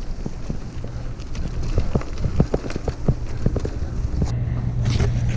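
Mountain bike rolling over gravel and rocky dirt: the tyres crunch and the chain and frame rattle in a run of sharp, irregular clicks and knocks over a low rumble. The clicks thin out after about four seconds.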